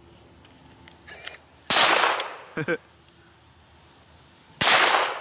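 Two single gunshots about three seconds apart, each with a short echo trailing off.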